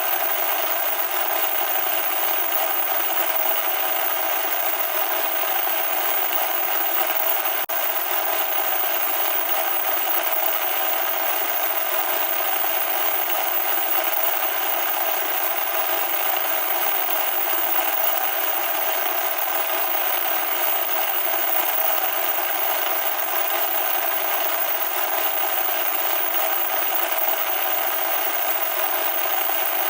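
Loud static noise: a harsh, steady hiss with no bass that never changes in level.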